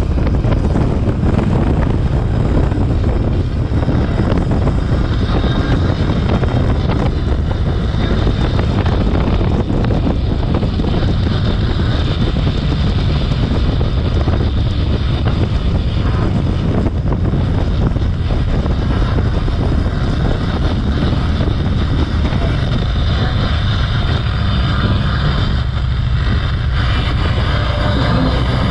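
Steady engine, tyre and wind noise of a car driving along a road.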